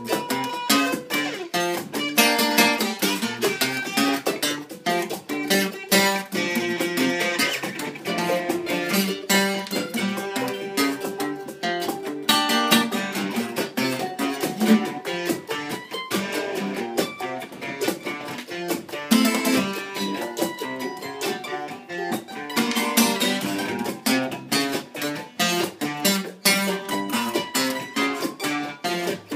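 Acoustic string band jamming an instrumental passage: mandolins, acoustic guitars and a five-string banjo picking and strumming together over a steady beat from a cajon.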